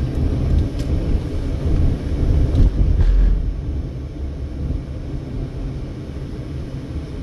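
Car driving slowly, a low engine and road rumble that swells about two to three seconds in and then eases off.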